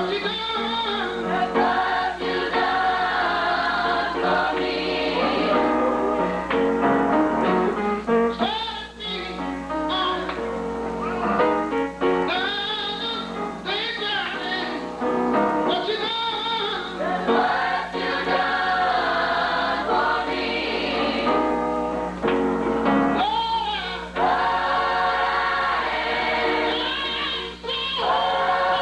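Church choir singing a gospel song, many voices together over a steady low tone, sounding dull and muffled as on an old videotape recording.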